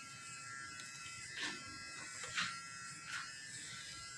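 Electric hair clipper running with a steady high buzz while cutting hair, with three brief louder moments about a second apart.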